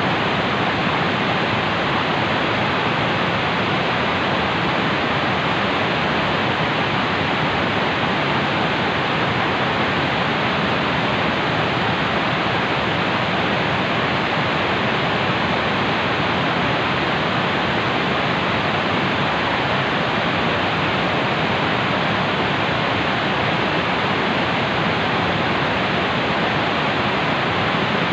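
Steady, loud rush of a fast-flowing, swollen river.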